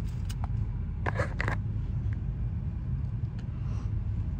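Steady low rumble of a car heard from inside the cabin, with a brief burst of noise about a second in.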